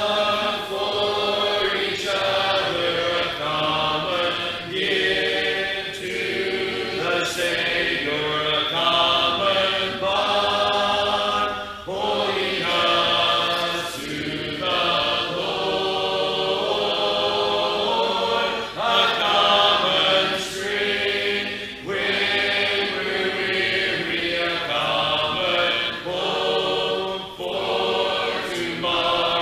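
Congregation singing a hymn a cappella in parts, the singing continuous with short breaks between phrases.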